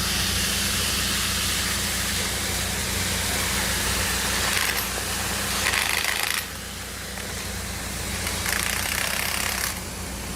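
Water jetting under high pressure from a burst water main, a loud steady rushing hiss over a low machine hum, dropping away sharply about six seconds in and again near the end.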